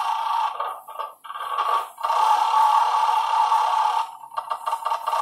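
Electronic game sounds from a coin-operated roulette gaming machine's speaker: a rapid run of tones as the lights chase around the wheel and the counters change. They break off briefly about a second and two seconds in and thin out near the end.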